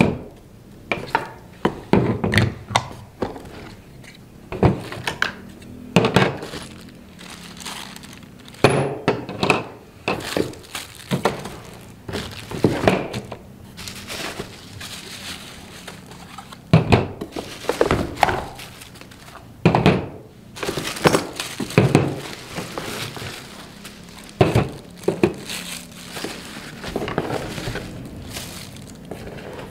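Plastic and metal parts of a cordless lawn trimmer kit being taken from the box and set down one after another on a table: a run of separate knocks and thunks, mixed with the rustle of parts in plastic bags.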